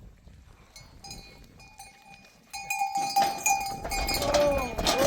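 Bells on herd animals ringing and clinking, faint at first and louder from about halfway through as the flock comes closer. Near the end an animal in the herd bleats twice.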